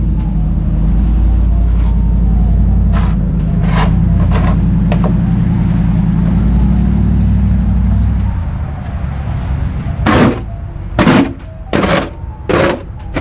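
A steady low machine hum that fades after about eight seconds, followed near the end by four loud, short noises.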